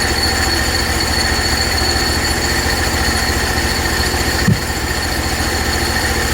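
Hud-son HFE30 portable band sawmill running steadily, its gas engine drumming low with a thin high whine from the band blade above it. A brief knock about four and a half seconds in.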